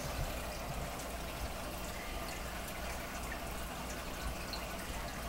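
Aquarium water trickling and bubbling steadily, with many small drips and bubble pops.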